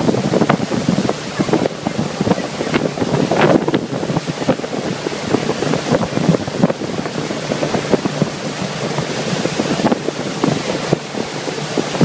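Wind buffeting the microphone aboard a speedboat under way, a loud rough rumble over the rush of water.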